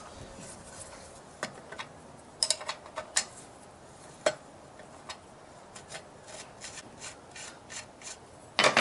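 Spanner loosening the front axle nut of a child's bicycle. Scattered metal clicks and scraping as the wrench turns on the nut and is set back on it, with a louder click near the end.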